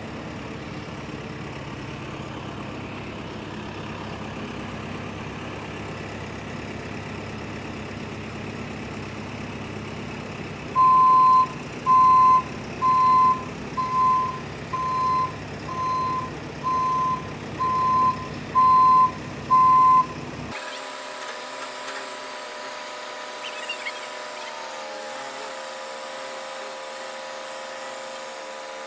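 A heavy vehicle's engine runs steadily, and about 11 s in its reversing alarm sounds ten loud single-tone beeps, about one a second. Just after 20 s the engine sound cuts off suddenly and a steady, higher whine takes over.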